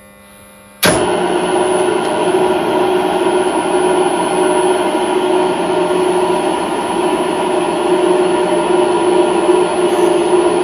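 Cincinnati Toolmaster 1C milling machine switched on about a second in, then its spindle running steadily with a strong hum while a twist drill is fed down into a thin metal plate.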